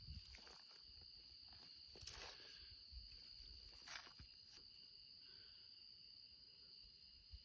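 Near silence of the night desert, with a faint, steady, high-pitched insect trill and a couple of soft ticks.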